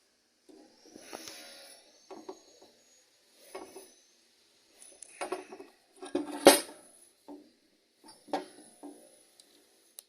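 Scattered metal clinks and rattles of pliers working the nuts and bolts on a washing machine motor's housing, with one louder clank about six and a half seconds in.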